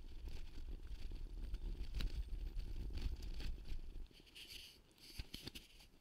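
Bicycle riding over a dirt forest track, with low rumbling wind and bumps on the microphone and tyres crackling over dry leaves and twigs. About four seconds in, the rumble drops away as the bike slows to a stop, leaving scattered crackles and clicks.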